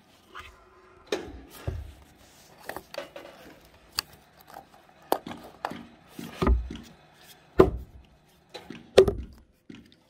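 Irregular knocks and thumps of heavy timber on timber as log-cabin rafters and logs are handled and set in place. The heaviest, deepest thumps come in the second half.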